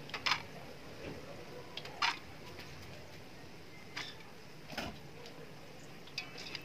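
A handful of light, sharp knocks, a second or two apart, of a utensil against a large metal cooking pot as drained parboiled rice is dropped into it.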